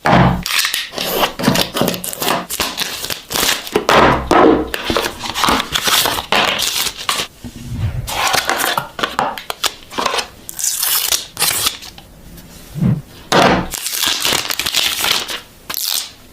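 Packaging being opened and handled by hand: irregular rustling, crinkling and tearing of wrapping and box material, with a few dull knocks as it is handled.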